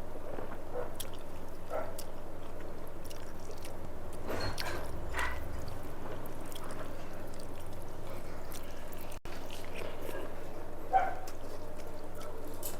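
Eating by hand: wet squishing as rice is mixed with fish curry, and chewing, as scattered soft clicks and smacks, a little louder about four to five seconds in and once near the end, over a steady low hum.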